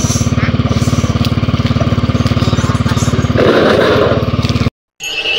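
Small engine idling close by with an even, rapid putter, a little louder about three and a half seconds in. The sound cuts off, and near the end a steady high-pitched electronic tone begins.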